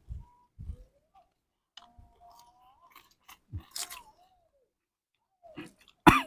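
Close-up chewing and biting of crisp raw vegetables with sambal, short crunches and wet mouth clicks, with a louder crunchy bite near the end.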